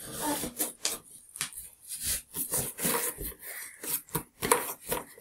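Hands rubbing and scraping inside a cardboard box while feeling for a hidden object: a run of irregular scratching strokes.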